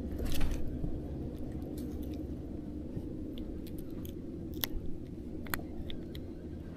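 A just-landed crappie being handled and unhooked: scattered small clicks and rustles, with a slightly louder burst about half a second in, over a steady low hum.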